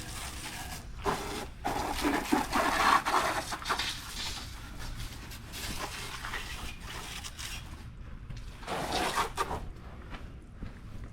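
Water spraying and splashing onto a dirt bike as it is washed, hissing in uneven surges, with a couple of short knocks about a second in.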